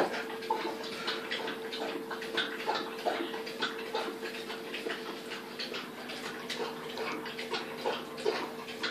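A steady hum with many scattered soft clicks and rustles, as a tissue and a glass are handled on a kitchen worktop.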